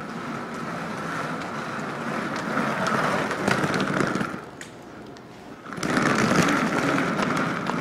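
Small wheels rolling over a hard stone floor, a steady rumble that eases off briefly about halfway through, then picks up again.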